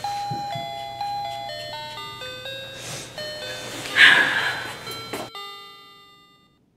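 Background music: a melody of ringing notes stepping up and down, with a sharp noisy hit about four seconds in. The music cuts off about five seconds in, leaving the last notes fading to silence.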